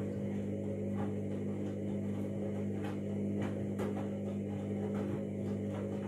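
Candy front-loading washing machine running early in a synthetics cycle: a steady hum, with a few soft knocks as the drum turns the laundry.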